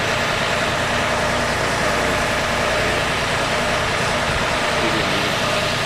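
Boom lift's engine running steadily, an even mechanical drone with a faint steady hum in it.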